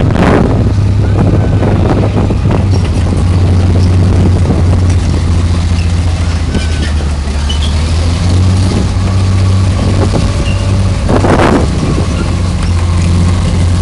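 Tiger I tank's Maybach V12 petrol engine running with a steady low hum as the tank drives slowly forward, its steel tracks clattering. A brief louder rush comes about eleven seconds in.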